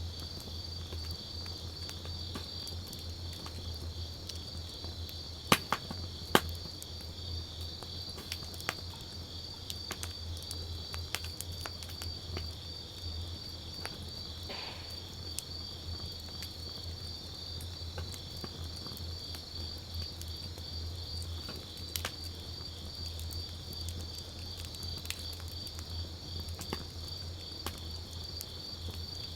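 Wood campfire crackling with scattered sharp pops, the loudest a few about five to six seconds in, over steady high chirping of crickets.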